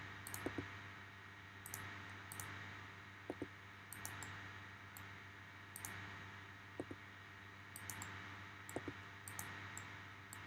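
Irregular computer mouse and keyboard clicks, about a dozen scattered through, over a faint steady electrical hum.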